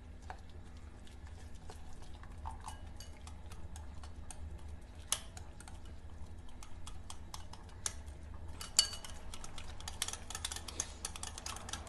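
Wire whisk beating maida flour and milk into a thin dosa-style batter in a glass bowl, its wires clicking and tapping against the glass, the strokes coming faster and denser in the last few seconds. A steady low hum runs underneath.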